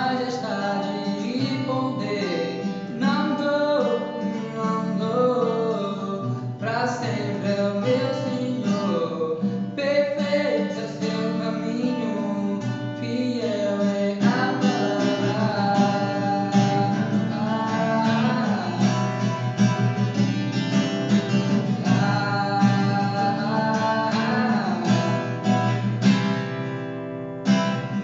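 A man singing while strumming his own cutaway acoustic guitar.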